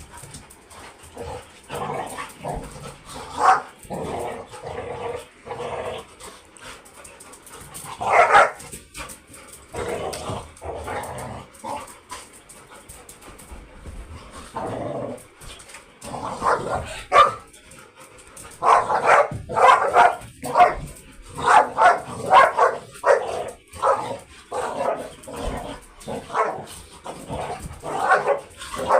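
Labrador dogs barking in play: scattered short barks at first, then a quick run of barks in the last ten seconds or so.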